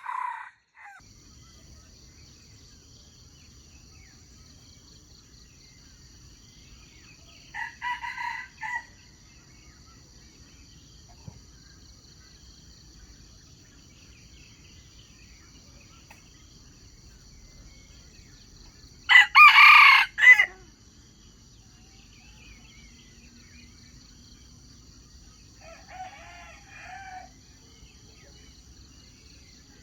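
Wild junglefowl roosters crowing about four times in short crows, the loudest about two-thirds of the way through and a fainter, lower one near the end. A steady high-pitched buzz runs underneath throughout.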